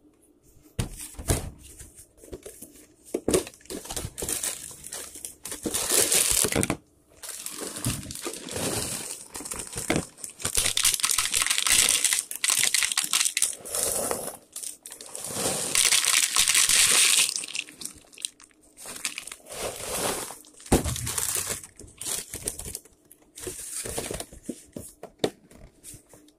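Crinkling and rustling of a cereal box and its plastic inner bag, with cereal being poured into a plastic bowl, in repeated stretches of a second or two with short pauses between.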